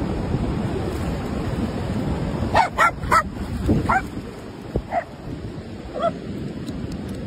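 Dog barking in play: three quick barks close together about two and a half seconds in, then single barks roughly once a second, over a steady wash of surf and wind.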